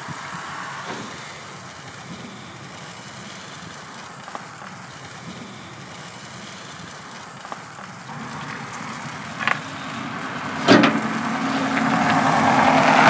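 Steady hiss and light crackle from a meat smoker's fire, with a few soft clicks of meat being handled on the metal grate. A sharp click comes near the end, then a louder sound rises over the last two seconds.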